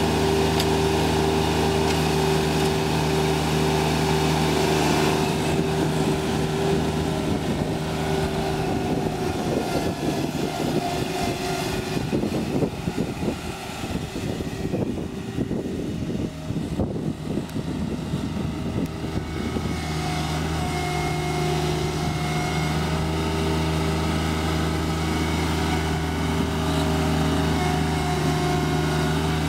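Kubota D1105 three-cylinder diesel engine of a Jacobsen LF1880 fairway mower running steadily as the mower is driven across a field. In the middle the sound grows fainter and uneven as the mower moves off into the distance, then steadies again as it comes back near.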